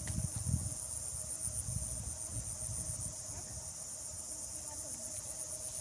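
Insects, such as crickets, trilling in a steady high pulsing chorus, with an uneven low rumble underneath.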